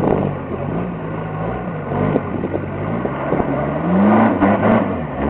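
Off-road vehicle's engine revving up and down under load, its pitch climbing to a peak about four seconds in, with scattered knocks and clatter from the vehicle.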